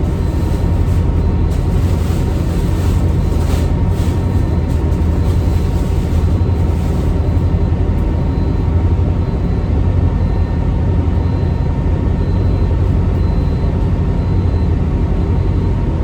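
Steady low drone of a towboat's engines heard from on board, unchanging throughout, with a few faint clicks in the first half.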